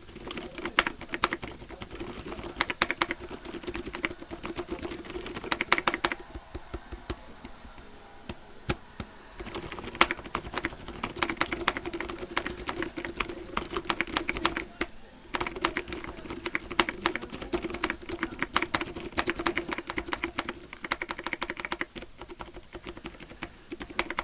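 Mechanical keyboard with Gateron Brown tactile switches silenced with liquid latex, typed on in quick flurries of muted keystrokes. The typing eases off for about three seconds some six seconds in, and pauses briefly near the middle.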